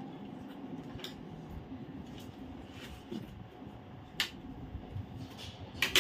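Watermelon being eaten, with wet bites and a few sharp clicks of a utensil against a ceramic plate, the loudest near the end, over a steady low hum.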